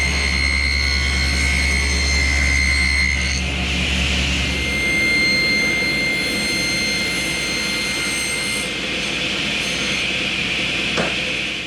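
Electric power tool motor running steadily with a high whine, its hum shifting slightly about five seconds in.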